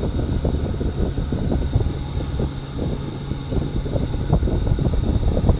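Air from an electric shop fan blowing across the microphone: steady low wind noise with a faint steady high tone above it.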